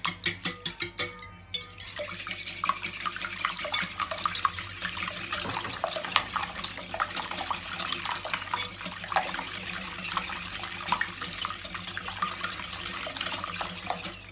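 Metal wire whisk beating raw eggs in a ceramic bowl: a rapid run of sharp, evenly spaced taps against the bowl over the first second and a half, then steady fast whisking, a continuous swish with light clicks of the wires on the bowl.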